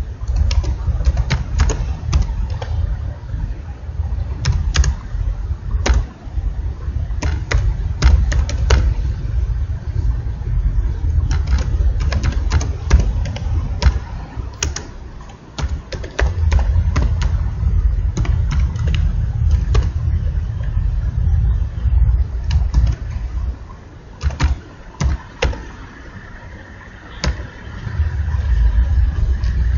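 Computer keyboard typing: irregular runs of key clicks over a loud, steady low rumble.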